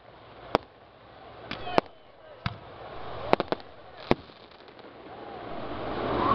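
Aerial fireworks shells bursting: a string of sharp bangs, with a quick triple about three and a half seconds in, and a swelling rush of noise near the end.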